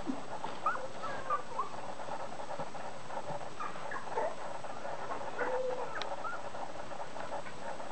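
Two-week-old whippet puppies squeaking and whimpering: many short, high squeaks scattered throughout, with a longer, lower whine a little past the middle.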